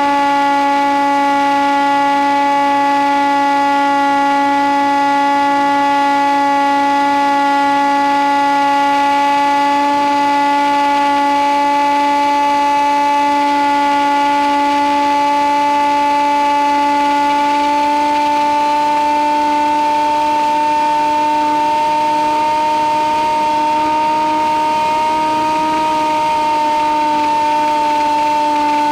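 Electric motor and propeller of an FPV model plane, heard through its onboard audio transmitter, running as a steady high whine at cruise throttle. The pitch rises slightly about two-thirds of the way through and eases off again near the end.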